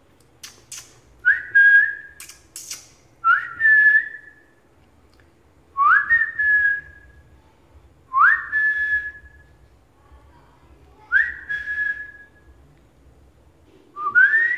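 A person whistling six short calls, about one every two to three seconds, each rising quickly and then held on one note. A few sharp clicks come between the first calls.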